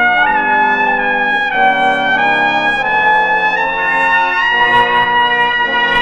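Trumpet playing a slow melody in long held notes over brass chords, which change about once a second. The sound comes from a vinyl record transfer.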